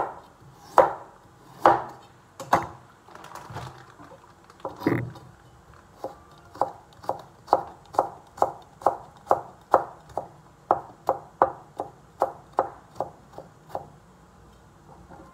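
Kitchen knife chopping a carrot on a cutting board. A few slow, spaced chops are followed from about six seconds in by a steady run of quicker chops, between two and three a second, which stop shortly before the end.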